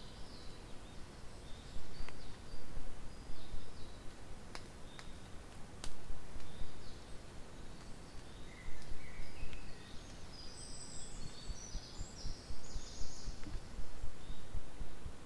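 Outdoor ambience: wind rumbling on the microphone in gusts, with small birds chirping now and then, most busily from about ten to thirteen seconds in. A few faint clicks are heard in the first six seconds.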